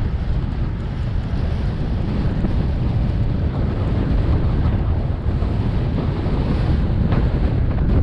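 Wind buffeting the microphone of a bike-mounted camera while riding a bicycle at about 20 mph in strong wind: a loud, steady low rumble.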